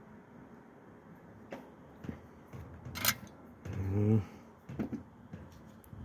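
A few small clicks and knocks of hand work at a metal microscope stand, the sharpest about three seconds in. A short low hum from a man's voice comes about four seconds in.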